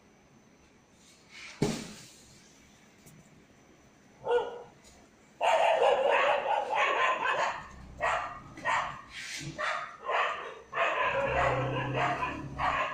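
A single sharp knock about one and a half seconds in, then dogs barking in loud, quick, repeated bursts from about five seconds on.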